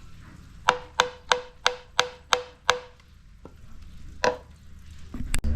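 Seven quick, evenly spaced hammer blows on metal, each ringing briefly, then one more blow a moment later.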